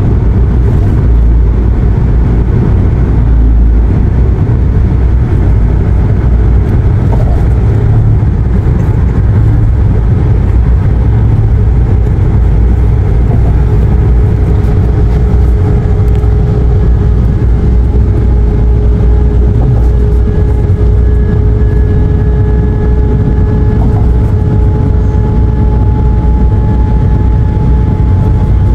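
Steady low road and engine rumble inside a passenger van cruising at highway speed. About halfway through, a faint steady whine joins it.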